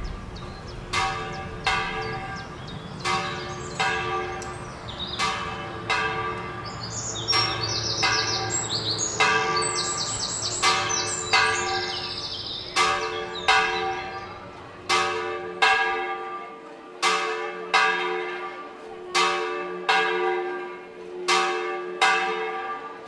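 Church bells ringing, about one strike a second, each note ringing on. Birds chirp briefly near the middle, over a low background rumble that drops away about two-thirds of the way through.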